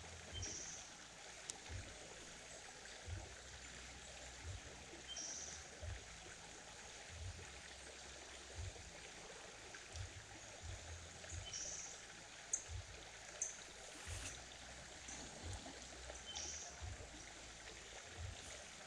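Creek water running steadily, with occasional soft low bumps and a few brief high chirps.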